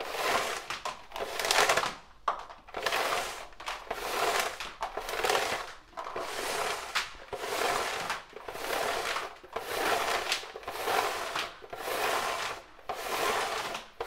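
Yellow plastic reel of a long wander test lead being turned by hand as the lead runs on or off it: a rhythmic swishing rattle that swells and fades about once a second with each turn.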